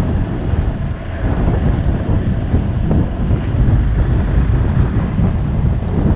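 Wind buffeting an action camera's microphone on a moving motorcycle, over the steady running of the bike's Hero XPulse single-cylinder engine.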